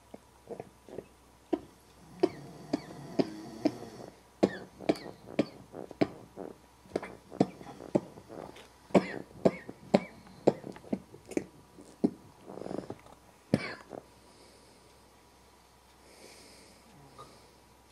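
A person stifling a laughing fit: a long run of short choked snorts and coughs, about two a second, forced through the nose and throat to keep quiet, dying away about 14 seconds in.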